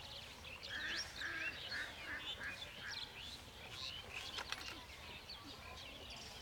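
Several birds chirping and calling. In the first few seconds one bird gives a run of about six repeated notes that come faster and shorter as it goes.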